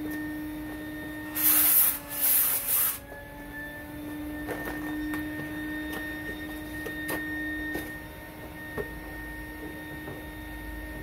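HVLP paint sprayer's turbine running with a steady whine, while the spray gun hisses in two short bursts, about one and a half and two and a half seconds in. A few light clicks follow later.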